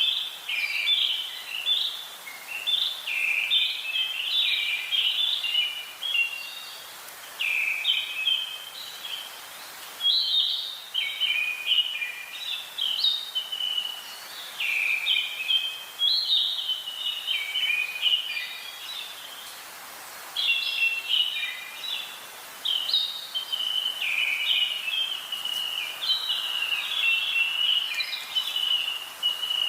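Birdsong: rapid, varied chirping phrases, one after another, with short pauses every few seconds, over a faint hiss.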